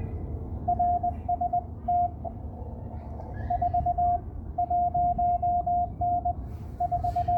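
Morse code (CW) from an amateur radio: a single steady tone keyed in dots and dashes, in groups with short gaps between, over a constant hiss of band noise.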